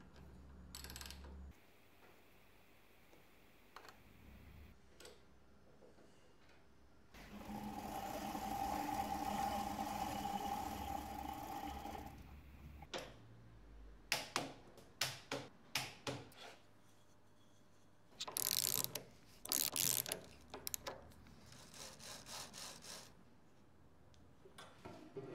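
A small machine runs steadily for about five seconds, then come a run of sharp metallic clicks and knocks from hand tools and steel parts being handled and tightened while CNC router rails are set up and checked with a dial indicator.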